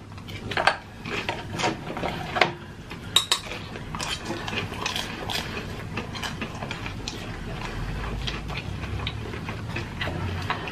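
Close-miked eating of pan-fried dumplings: chewing, with scattered sharp clicks of chopsticks against the griddle tray and sauce dishes, busiest in the first half.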